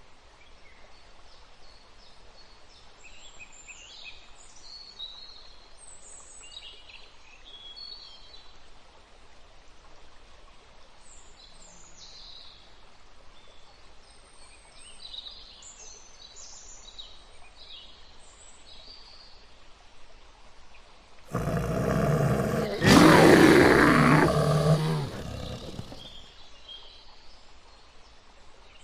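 Birds chirp intermittently in the background; about 21 seconds in, a large wild animal gives one loud, low roar lasting four to five seconds before it fades.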